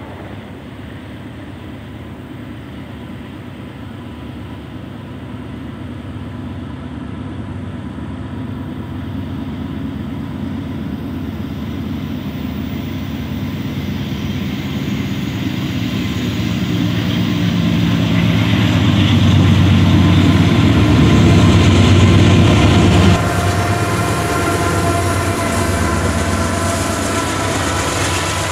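A GE AC44C6M diesel-electric locomotive approaches and passes, its diesel engine rumbling louder and louder as it nears. The level drops suddenly about 23 seconds in, and the autorack cars then roll past on the rails with thin steady high tones from the wheels.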